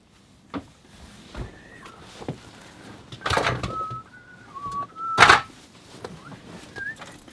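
A person getting into a truck cab: a few light clicks and knocks, then two louder thuds a couple of seconds apart, the second the loudest. Through the second half a simple tune is whistled in short held notes.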